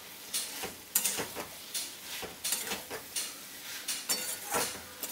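Spatula scraping and knocking against a kadai while stirring fried potatoes and cauliflower into poppy-seed paste: irregular scrapes and clacks, about two a second, some with a short metallic ring.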